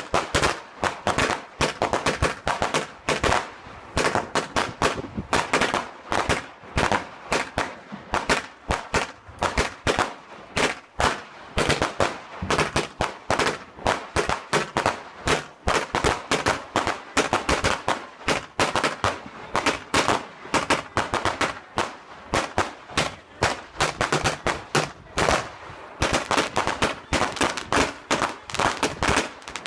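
Fireworks going off in a continuous run of sharp bangs and crackles, several a second, like rapid gunfire, growing denser near the end.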